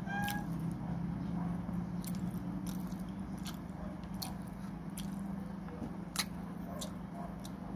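Close-up chewing and mouth sounds of someone eating soft puto topped with grated coconut, with scattered sharp clicks, the loudest about six seconds in, over a steady low hum.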